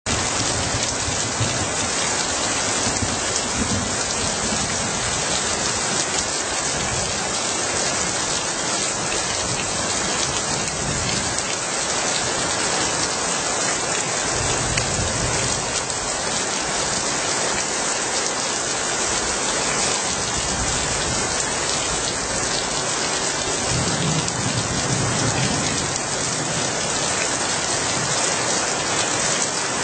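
Steady rain falling and splashing on the street, an even unbroken hiss.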